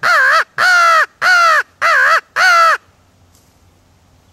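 Hand-held crow call blown in a hunting blind: five loud caws in quick succession, each bending up and then down in pitch, stopping about three seconds in.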